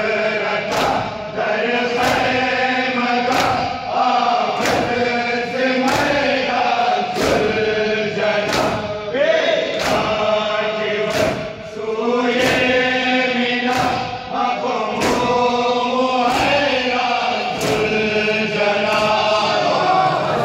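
Many men chant a nauha, a Muharram lament, together in a steady rhythm. It is punctuated by rhythmic chest-beating (matam), sharp hand-on-chest slaps a little under a second apart.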